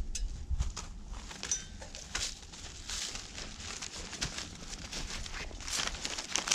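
Footsteps crunching and shuffling in shallow snow, a string of short, irregular crunches.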